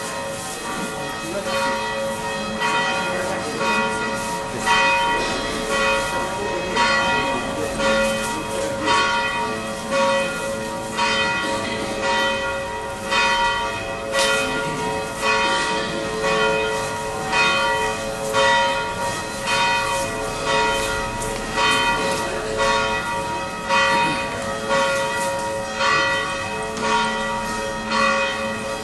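Church bells ringing: several bells struck over and over in a repeating pattern, the loudest stroke coming about every two seconds, each note ringing on into the next.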